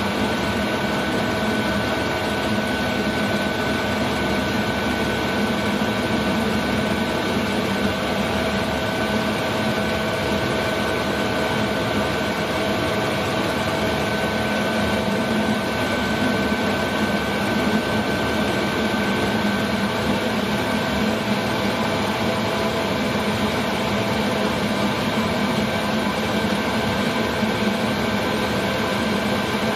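Chinese 5 kW diesel air heater ("autonomka") running steadily on its first start, its blower giving an even whine with a low hum beneath. It is working up to temperature, the stage where this heater is loud.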